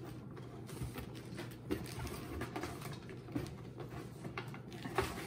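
Gift parcels and their packaging being handled: scattered soft taps and knocks with faint rustling, the sharpest knock near the end, over a low steady room hum.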